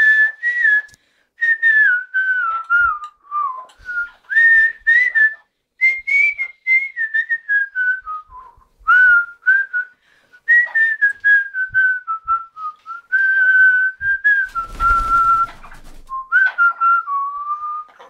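Amazon parrot whistling a tune: a run of short, clear whistled phrases that glide up and down in pitch, with brief pauses between them.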